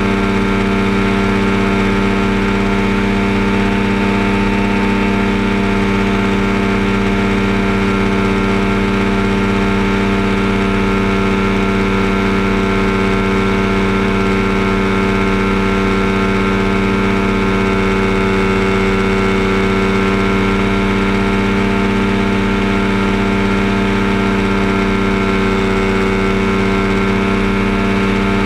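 Kolb Firestar II ultralight's two-stroke engine and pusher propeller running at a steady cruise power setting in flight: an even, unchanging drone.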